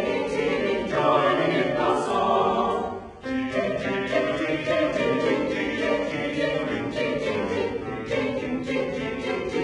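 Choir singing, with a short break in the sound about three seconds in.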